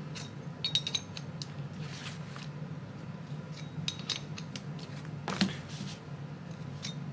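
Jaws and plate of a gear and pulley puller being taken apart and refitted by hand: scattered light metal clicks and clinks, with one louder knock about five seconds in. A low steady hum runs underneath.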